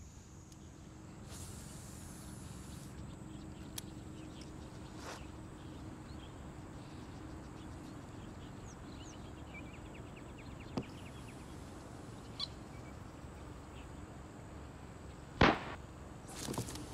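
Outdoor ambience with a low steady rumble and faint high bird chirps, broken by a few light clicks and one sharp, loud knock about fifteen seconds in.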